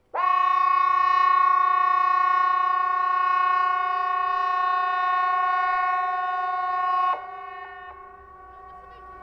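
Hesa Fredrik civil defence siren sounding a steady tone with a rich stack of overtones. It starts suddenly, holds for about seven seconds, then cuts off, and the same tone carries on more faintly afterward. The seven-second blast is the pattern of the Swedish 'important message to the public' warning signal, sounded here as the quarterly test.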